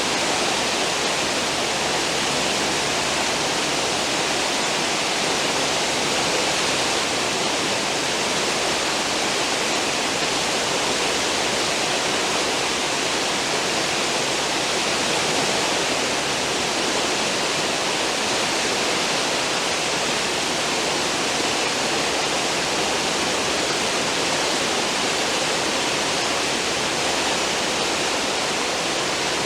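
Churning water of a cruise ship's stern wake, a steady, unbroken rush.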